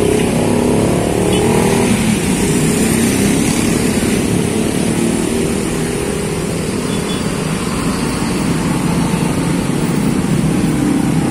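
A coach bus's engine running as the bus moves slowly past at close range, over steady traffic noise from motorcycles and cars.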